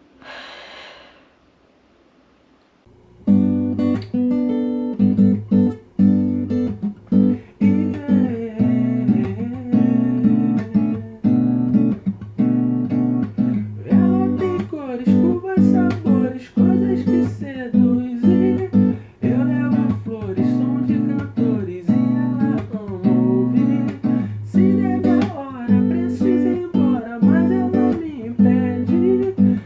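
A short breathy puff of air, then strummed acoustic guitar music that begins about three seconds in.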